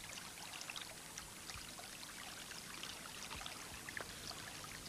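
Faint running water of a creek, with scattered small clicks.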